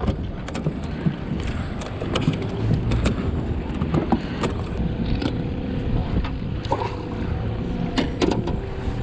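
Wind buffeting the microphone out on open water, with scattered sharp knocks and clicks.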